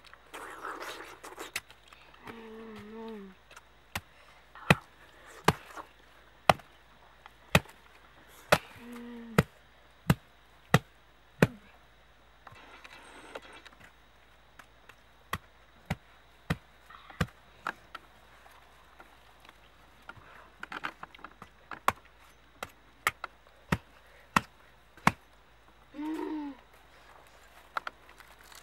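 A meat cleaver chopping into a palm fruit: sharp single strikes about one a second, in two runs with a pause between. A few short pitched calls are heard in between.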